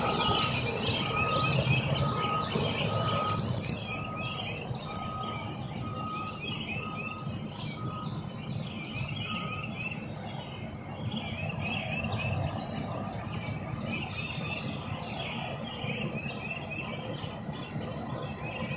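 Many small birds chirping over a low rumble. Through the first half a steady high beep repeats about once a second, then stops.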